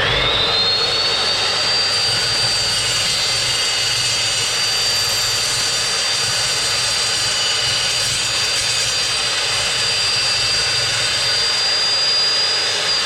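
Evolution S355CPS cold-cut metal chop saw (2200 W motor, 355 mm 66-tooth blade) switching on and running: a high whine rises quickly to a steady pitch, then sags in pitch near the end, while the saw makes a slow cut through thin-wall steel box section.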